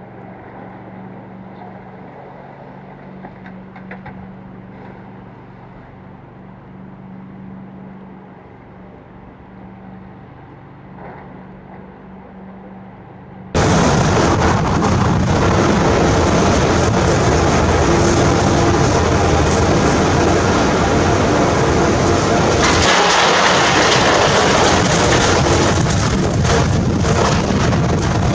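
Earthmoving machinery at work: a diesel engine runs steadily with a low hum, then after an abrupt cut about halfway through, a much louder, rough rumbling takes over.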